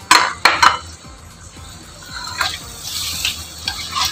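A ladle knocks sharply against a wok three times in the first second, then vegetables are stirred in watery broth, with liquid sloshing in the pan.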